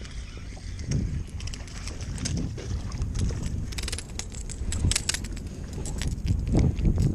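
A hooked fish splashing at the surface and being swung aboard, with quick clicking and rattling from the spinning reel and popping-cork rig, over a steady rumble of wind on the microphone.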